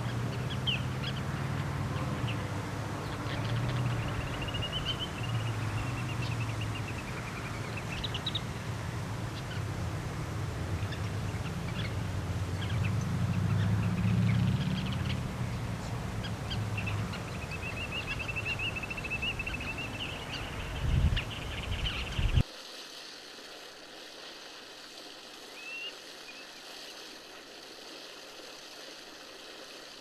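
Ruddy turnstones calling in quick, high twittering rattles, in two longer bursts, over a steady low rumble. About two-thirds of the way through, the sound cuts to a quieter background with a single short chirp.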